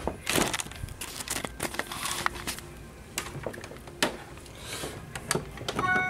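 Handling noises: a string of light clicks, knocks and rustles as cables and plastic fittings under a desk are handled, with a few short squeaks near the end.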